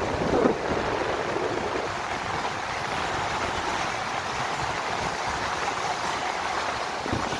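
Steady rushing of a fast white-water river beside the road, mixed with wind on the microphone and tyre noise from a moving car. The low wind rumble eases about two seconds in, leaving the even hiss of the water.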